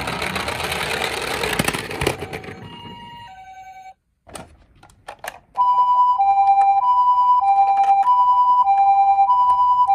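Toy ambulances rattling and rolling down a slope: a dense clattering rush for the first three seconds, over a faint electronic siren. After a few knocks, a loud electronic two-tone hi-lo ambulance siren in the Japanese 'pee-po' pattern starts about halfway through and repeats steadily.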